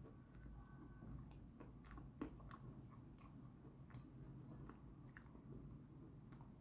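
Quiet close-up chewing of a mouthful of edible chalk: scattered soft crunches and small clicks, the sharpest about two seconds in.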